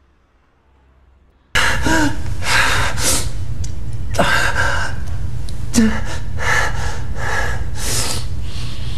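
A man's heavy, ragged breathing and gasps over a steady low hum, starting abruptly about a second and a half in after near quiet.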